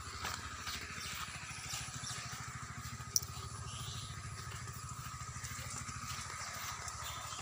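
An engine running steadily with a fast, even pulse, and a single sharp click about three seconds in.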